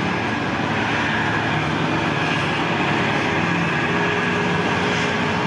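Steady, loud engine noise of a large passing vehicle, with a thin high tone running through it and a lower hum that comes in about four seconds in.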